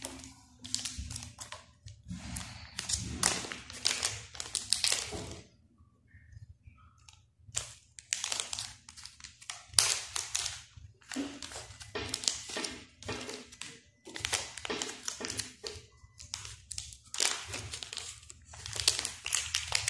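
Small clear plastic bags and protective film crinkling and rustling in short bursts as small accessory pieces are handled and peeled.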